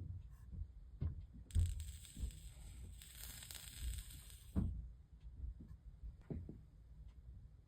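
Soldering iron melting solder onto the lead came joints of a leaded-glass panel: the flux sizzles in two hissy spells of a second or two each, with soft knocks and taps of the iron and tools on the work between them.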